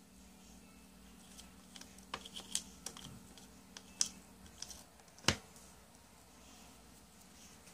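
Hands handling a multi-compartment plastic case with small hinged lids: a run of light plastic clicks and taps, the loudest a single sharp click about five seconds in.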